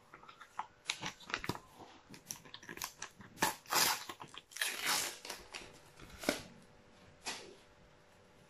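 Panini sticker packet being torn open by hand: a run of crinkling, crackling rips, loudest around the middle, that stops about seven seconds in.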